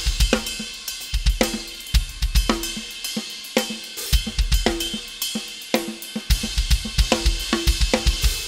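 Drum kit played in a groove, with kick drum, snare and cymbals, demonstrating a Meinl Byzance 22-inch Dark Raw Bell Ride.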